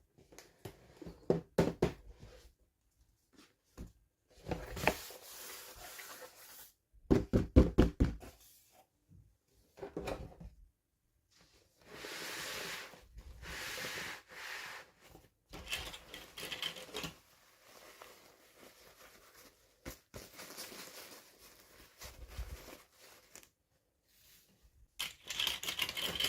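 Toy packaging being handled and opened by hand: plastic and paper rustling and tearing, broken by quick runs of clicks and taps.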